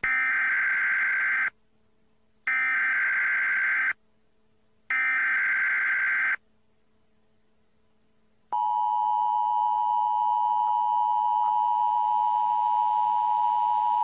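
Emergency Alert System tones. Three screechy digital data bursts of the SAME header, each about a second and a half long with short gaps between them. About eight and a half seconds in, the steady two-tone EAS attention signal begins and holds.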